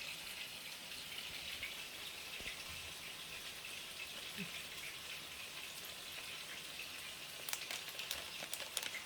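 Food frying in a hot pan: a steady sizzle, with a cluster of small sharp clicks and pops near the end.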